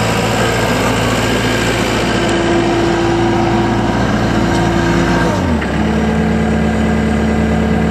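Takeuchi TB290 compact excavator's diesel engine running steadily close by; a little after five seconds in its speed drops and it settles to a lower, steady idle.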